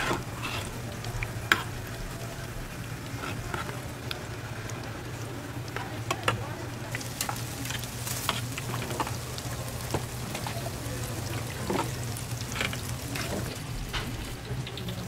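Tteokbokki simmering in a large flat steel pan, its sauce bubbling, while a metal ladle stirs and scoops it and clinks against the pan, in scattered sharp clicks. A steady low hum runs underneath.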